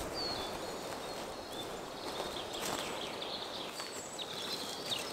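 Songbirds chirping in short high notes, with footsteps and the rustle and snap of dry litter and twigs underfoot, clearest in the second half.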